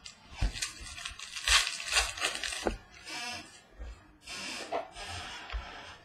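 Foil wrapper of a Contenders football card pack crinkling and tearing as it is opened, with cards rustled in the hands and a few light knocks on the table.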